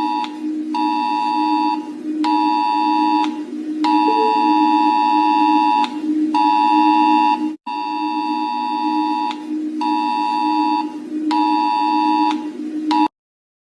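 Emergency alert alarm tone: a steady low drone under a higher, buzzer-like tone that pulses on and off in uneven stretches of about half a second to two seconds. It drops out for an instant about halfway through and cuts off abruptly near the end.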